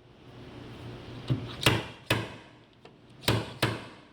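Steel PDR slide hammer being jerked, its sliding weight striking the end stop five times in two quick groups (three, then two) to pull a bent-over car door edge out with a hook attachment.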